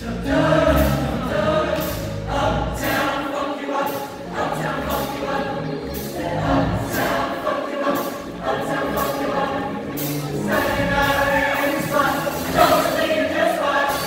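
A large mixed-voice high school choir singing.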